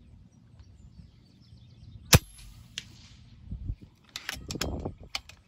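A single shot from a suppressed FX Impact MkII PCP air rifle about two seconds in: one sharp crack with a short ringing tail, then a faint tick about half a second later. Near the end comes a quick run of metallic clicks as the side lever is cycled for the next pellet.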